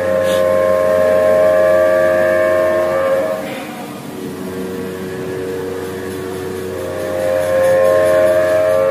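Compressed-air blow gun blasting chips off a workpiece in a milling-machine vise: a loud hissing blast with a whistling note. It eases off briefly about halfway through and swells again near the end.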